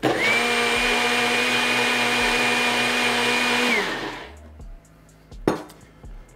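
NutriBullet personal blender running for about four seconds, blending a thick chickpea-flour batter. Its motor whine holds steady, then falls away as it spins down. A single sharp click comes about five and a half seconds in.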